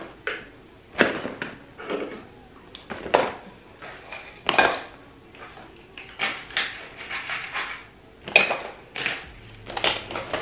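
Plastic toiletry bottles, tubes and small containers knocking against each other as they are packed one by one into a clear plastic toiletry bag: a string of irregular clacks and rattles.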